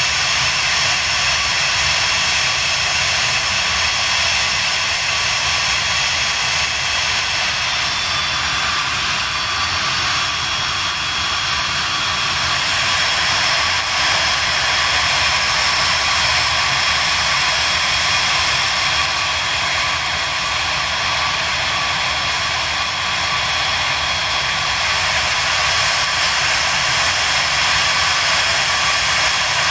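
Business-jet turbofan engines running steadily at low power: an even whine with several high tones over a rushing noise.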